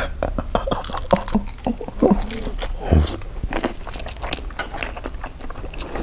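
Close-up wet chewing of a mouthful of soy-sauce-marinated salmon on Japanese rice, with many small lip-smacks and mouth clicks.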